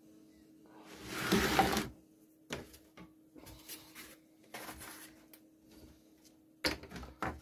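A thin wood veneer sheet and a hardboard panel handled on a wooden workbench: a scraping rustle lasting about a second, about a second in, then light taps and knocks, with a cluster of sharper knocks near the end.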